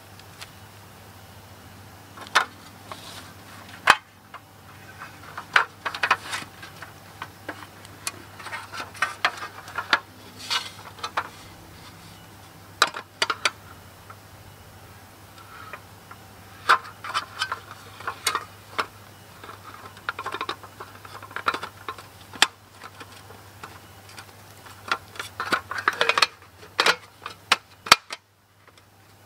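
Irregular light clicks, taps and clatters of small hard objects being handled, some in quick clusters, over a faint steady low hum.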